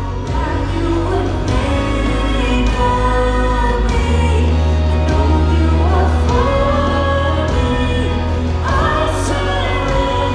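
Live worship band playing and singing: several voices at microphones over electric guitar and sustained bass notes.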